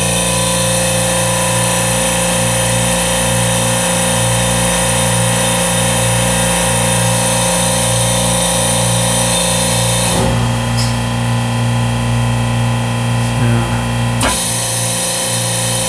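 Steady drone of industrial refrigeration compressors and their motors running, a mix of fixed hum tones and hiss. The high hiss drops away about ten seconds in and comes back about four seconds later.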